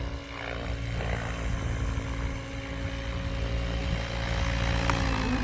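Goosky RS7 RC helicopter flying, its rotors and motor making a steady whine over a low rumble. Near the end the whine drops in pitch, just after a sharp click.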